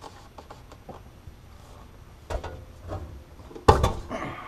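Scattered knocks and clicks of a Subaru's factory exhaust being worked off its rubber hangers. The loudest is a sharp clunk a little past three and a half seconds in, with a smaller knock a second earlier.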